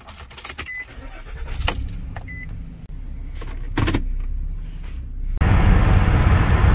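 Car keys jangling and clicking in the ignition with two short beeps, and the engine starting and idling; the automatic gear selector clicks near 4 s. About five and a half seconds in, the sound changes sharply to steady, loud road and engine noise inside the cabin while driving.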